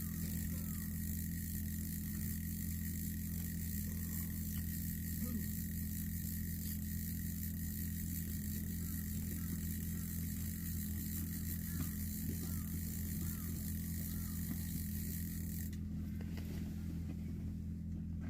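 A steady low hum with a thin high steady tone above it, and a faint hiss that drops away near the end; faint short chirps come and go over it.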